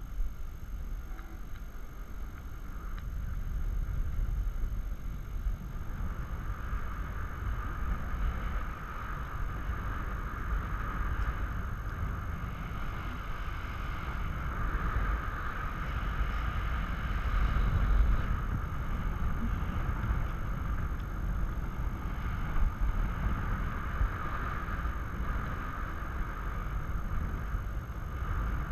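Wind buffeting the microphone in parasail flight, a rumble that swells and eases. From about six seconds in, a steady high whine sits over it.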